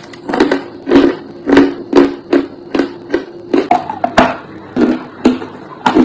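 Crunching as a chunk of dry chalk is bitten and chewed, in sharp, loud crunches about two a second, over background guitar music.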